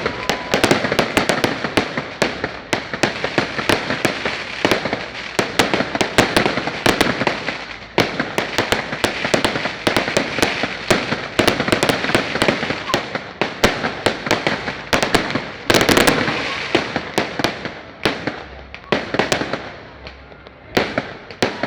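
Freshly lit São João bonfire blazing, with dense rapid crackling and sharp pops over a steady rushing hiss, and a cluster of louder cracks about 16 s in.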